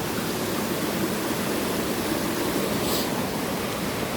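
Waterfall pouring into a river pool: a steady, full rush of falling water.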